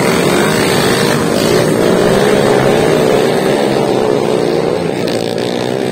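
Several four-valve underbone motorcycles racing on a muddy dirt track, their small four-stroke engines revving hard together. The engine sound eases off slightly near the end as the bikes pull away.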